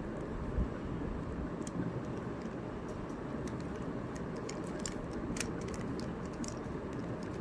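Plastic Rubik's Cube layers being turned by hand, making irregular quick clicks, over a steady low background rumble.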